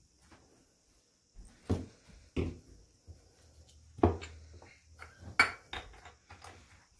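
A bottle and a small cup handled and set down on a granite countertop: a few sharp clacks and knocks, the loudest about four and five and a half seconds in, with light rattling and handling noises between.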